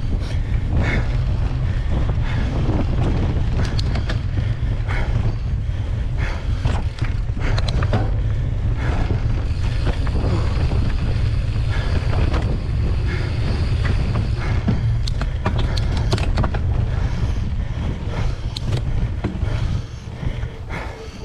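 Giant Trance 3 full-suspension mountain bike rolling along a dirt singletrack, heard through a handlebar-mounted action camera: a steady low wind-and-tyre rumble with frequent clicks and rattles from the bike over the rough ground. The noise drops about twenty seconds in.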